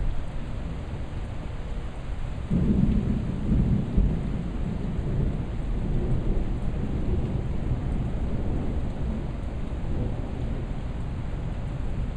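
Thunder rumbling: a low rumble breaks in about two and a half seconds in, is loudest for the next second or two, then rolls on more softly.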